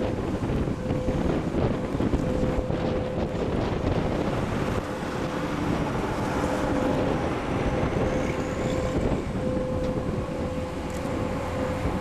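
Strong gusty wind buffeting the camera microphone, a steady rumbling rush with a faint steady hum that comes and goes.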